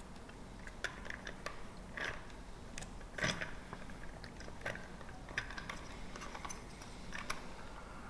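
Hands handling and turning the plastic parts of a bird-feeder camera's solar panel mount: scattered light clicks and short rustling scrapes, the loudest about three seconds in.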